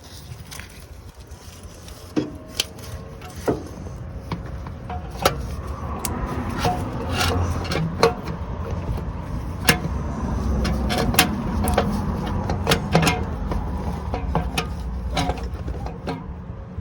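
Hand tools and parts clicking and knocking at irregular intervals as a replacement starter motor is fitted and bolted in under a van, over a steady low rumble. The knocks come thickest in the middle stretch.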